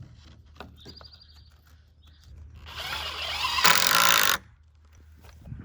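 A handheld power tool runs for about two seconds, its pitch rising as it spins up, then cuts off suddenly.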